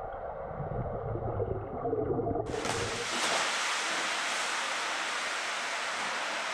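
Muffled underwater bubbling of scuba divers' breathing. About two and a half seconds in it gives way suddenly to a steady, loud gas hiss as a life raft inflates on the water.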